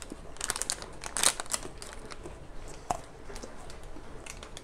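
Plastic snack-bar wrapper crinkling in the hands as it is handled and peeled open, in irregular crackles that are thickest in the first second and a half and then thin out.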